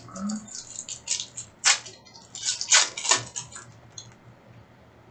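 Trading cards being handled and flipped through: a run of crisp rustles and snaps, two of them louder, over about three and a half seconds, then quiet.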